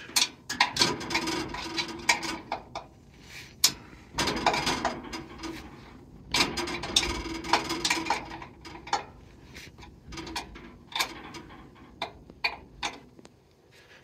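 Wrench working a bolt on the sawmill's engine mount: a run of metal clicks and scrapes as the mount is tightened to tension the slipping drive belt.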